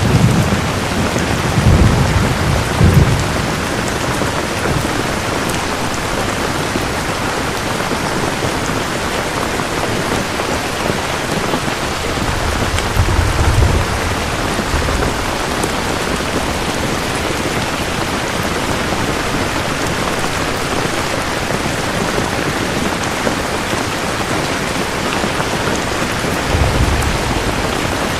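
Steady rain falling, with short low rumbles of thunder about two seconds in, around twelve seconds in, and near the end.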